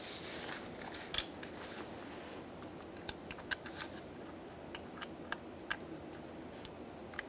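Small plastic clicks and rustling as a car door lock actuator and its door cables are handled: a rustle with a louder click about a second in, then a run of short, sharp light clicks.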